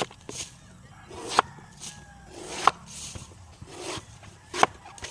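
Machete chopping into a large coconut: four sharp strikes at uneven intervals, a second or two apart.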